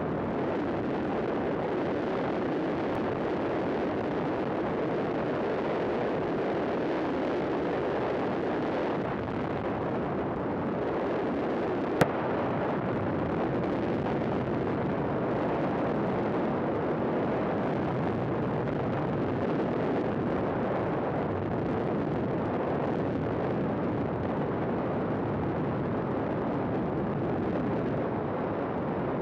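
Steady rush of wind buffeting the microphone in the open cockpit of a flex-wing microlight trike gliding down on approach, with one sharp click about twelve seconds in.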